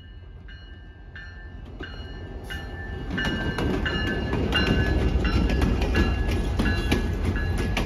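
Grade-crossing bell ringing in even strikes, about two a second, while an EMD GP38 diesel locomotive with its 16-cylinder two-stroke engine approaches and passes close by. The engine and wheel rumble grows steadily louder and is loudest from about three seconds in.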